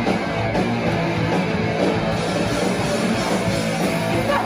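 Punk band playing live and loud, electric guitars over a full band.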